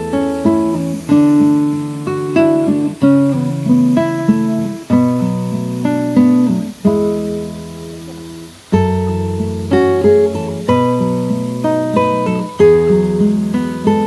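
Background music on acoustic guitar: plucked chords that ring and die away, a new chord struck about every second.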